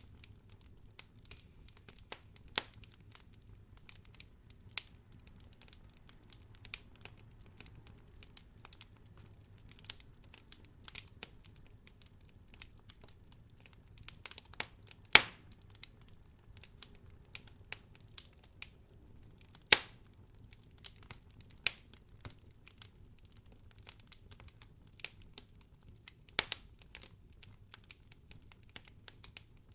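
Campfire of burning firewood crackling: irregular sharp pops and snaps over a faint low rumble, the two loudest pops about fifteen and twenty seconds in.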